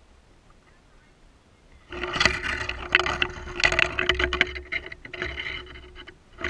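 Quiet for about two seconds, then a long run of rustling, scraping and clattering knocks: a dual-sport motorcycle leaning over in scrub while its rider grapples with it among branches.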